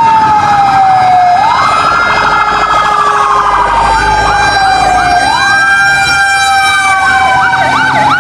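Electronic fire-truck siren of a toy fire truck, loud and steady: a slow wail that falls in pitch and sweeps back up, with a faster warbling siren layered over it from about halfway and quickening near the end.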